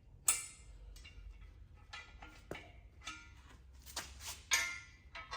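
Metal parts of a floor grinder's wheel kit clinking and knocking as a steel pin is pulled: about half a dozen sharp, ringing metallic knocks, the loudest just after the start and about four and a half seconds in.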